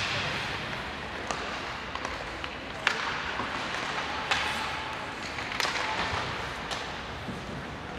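Ice hockey game play: sharp cracks of sticks and puck, about five in eight seconds, over a steady rink hubbub.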